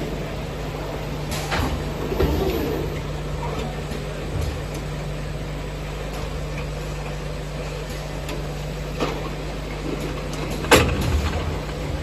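Bottle filling and capping line running: a steady machine hum with occasional sharp clacks and knocks, the loudest near the end.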